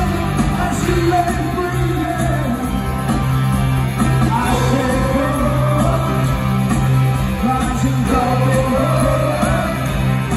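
Full rock band with a horn section playing live, a male lead vocal over a steady bass note, heard from the stands in a large arena.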